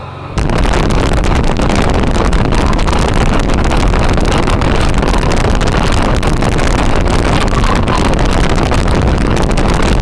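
Heavy wind buffeting on the microphone of a Honda NT700 motorcycle at highway speed, a loud steady rush that covers the engine. It comes in suddenly about half a second in.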